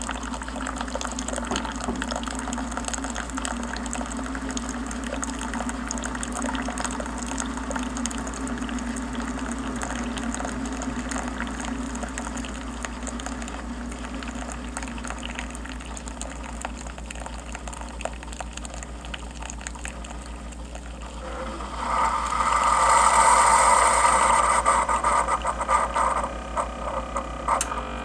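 Keurig coffee maker brewing: coffee streaming into a ceramic mug over the hum of the machine's pump, flowing freely now that the clogged needle holes have been cleared. About twenty-two seconds in, a louder sputtering hiss sets in for several seconds as the brew finishes.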